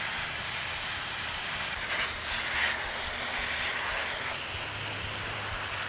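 Garden hose spray nozzle running, a steady hiss of water spraying.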